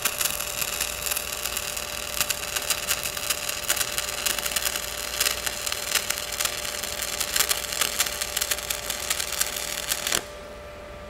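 AC stick-welding arc at a 20 Hz balance frequency from a Miller Dynasty 280DX, burning a 3/32-inch 7018 rod at about 90 amps: a steady crackle and sputter with a faint steady tone. It cuts off about ten seconds in as the arc is broken, leaving a quieter steady hum.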